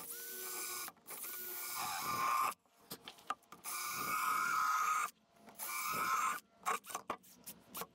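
DeWalt 20V MAX cordless drill with a 3/8-inch round burr bit grinding out foam core, run in stop-start trigger bursts: the motor whines up to speed at the start of each burst, grinds for about a second, and stops. The last few bursts, near the end, are very short.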